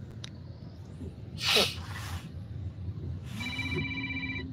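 Steady low rumble of a moving van's cabin. About a second and a half in, a person sneezes once. Near the end a steady high tone with a lower hum beneath it holds for about a second.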